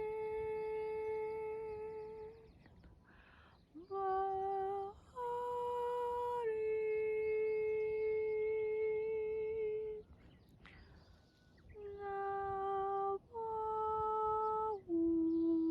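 A voice humming a slow, wordless melody of long held notes, each steady in pitch and stepping to the next. There are two short breaks in the line, about three seconds in and again around eleven seconds.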